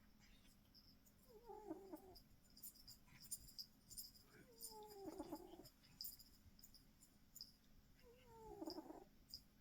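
Faint snoring during sleep: three short, squeaky snores about three and a half seconds apart, each a tone falling in pitch.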